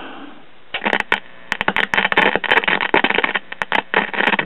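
1963 General Electric H220A AM transistor radio switched on, its scratchy volume control being turned. About a second in, the speaker starts putting out bursts of crackle and static, with sound cutting in and out: a dirty volume control.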